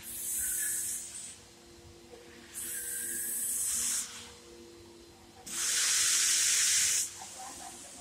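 Cyclon Super 17 gear-driven single-disc floor scrubbing machine running on a wet marble floor with a steady hum, broken by three bursts of hissing, each a second or so long, the last the loudest.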